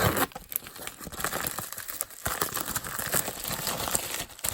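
Plastic packaging and bubble wrap being handled and pulled open, with irregular crinkling and tearing.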